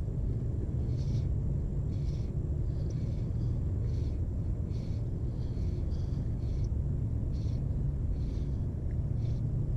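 Steady low rumble of wind on the microphone, with faint short swishes about once a second, typical of fly line being stripped in by hand during the retrieve.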